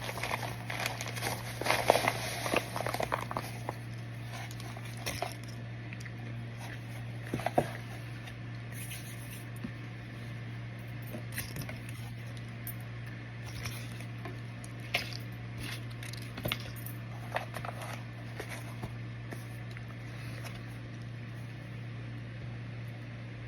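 Microwave-dried cornstarch crunching and crackling, a dense run of crackles in the first few seconds, then scattered single crunches and clicks, over a steady low hum.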